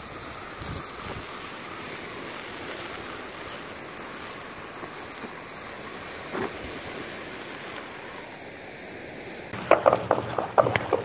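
Small sparkler-type firework hissing steadily as it burns. About 9.5 s in the hiss stops and a run of loud, short, sharp sounds begins.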